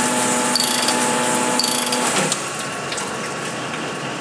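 A cylinder-honing machine running a plateau brush up and down an engine bore, with a steady hum and a short high chirp about once a second. About two seconds in, the spindle stops and winds down with a falling tone, leaving a quieter steady hum.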